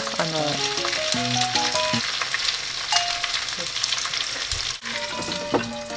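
Two eggs frying in oil in a frying pan: a steady sizzle with many small pops. A simple melody of short stepping notes plays over it.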